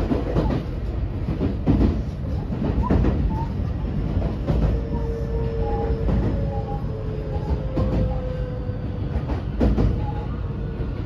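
In-cabin running sound of a JR West 225 series 100 motor car: its Toshiba IGBT VVVF inverter and traction motors give a whine that sets in about four seconds in and falls slightly in pitch. Under it the wheels rumble steadily and knock over rail joints every second or two.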